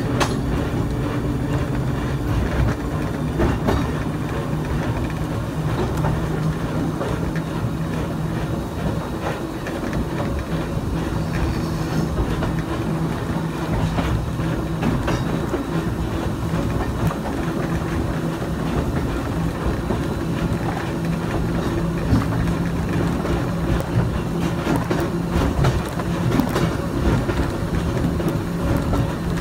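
Brooklyn Rapid Transit open streetcar 4573 running along the track, heard from inside the car: a steady low hum with wheel-on-rail rumble and irregular clicks of the wheels over rail joints.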